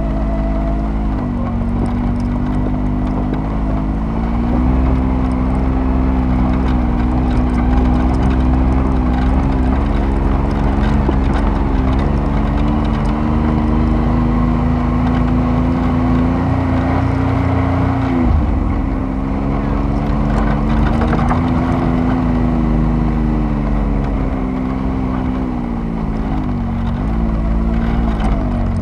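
Off-road vehicle engine running under load while driving over sand, its pitch rising and falling with the throttle and dropping sharply for a moment about two-thirds of the way through, with wind and tyre noise behind it.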